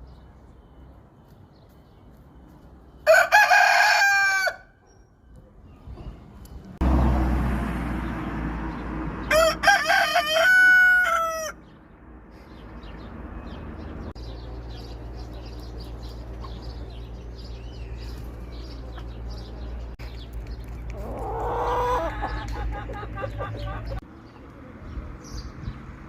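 Roosters crowing three times: loud crows about three and nine seconds in, and a fainter one about twenty-one seconds in, with a low steady hum underneath in the middle part.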